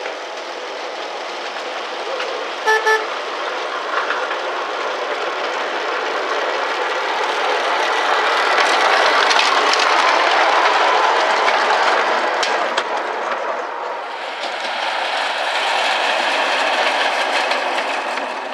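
Ride-on miniature railway train: two short horn toots about three seconds in, then the train running along the track with a steady rolling noise that swells twice as it draws near.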